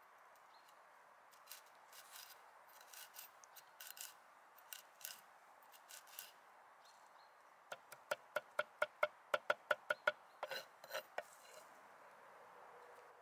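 Kitchen knife chopping fresh rosemary on a wooden cutting board: scattered light cuts at first, then about eight seconds in a quick run of about a dozen chops at roughly five a second, followed by a few more.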